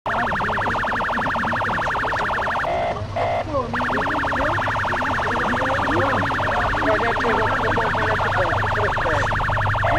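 Emergency vehicle siren sounding in a very fast pulsing warble. About three seconds in, it breaks for a moment into short steady beeps, then resumes.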